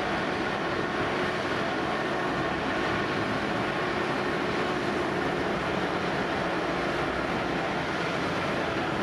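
Steady rumble of outdoor noise with a faint hum of running machinery in it.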